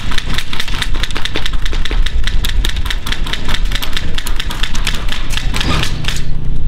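Airsoft guns firing in rapid, irregular strings of sharp clicking shots, several a second, over a steady low hum. The shots stop shortly before the end.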